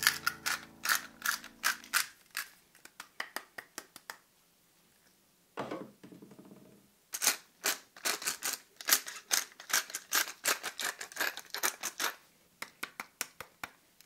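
Hand-turned salt and pepper grinders cracking grains over raw meat: quick runs of sharp gritty clicks, several a second, pausing briefly about four seconds in before starting again.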